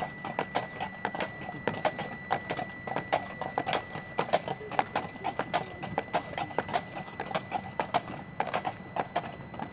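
Clydesdale horses' hooves clip-clopping at a walk on pavement as they pull a carriage: a continuous run of hoofbeats, several a second.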